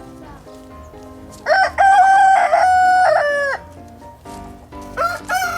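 Rooster crowing twice: one full multi-part cock-a-doodle-doo about a second and a half in, and a second crow starting near the end.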